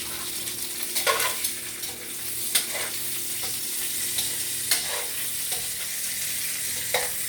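Hot dogs frying in hot grease over medium-high heat: a steady sizzle with a few sharp crackles.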